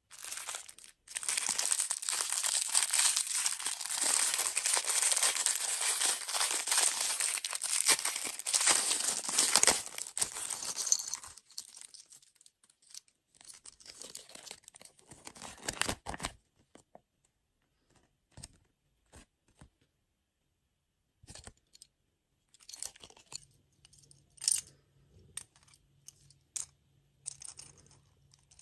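Food packaging being torn open and crinkled for about ten seconds, thinning out, then followed by scattered small taps and clicks.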